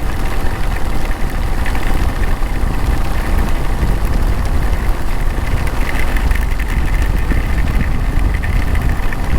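Motorcycle engine running steadily while riding, under a heavy continuous low rumble.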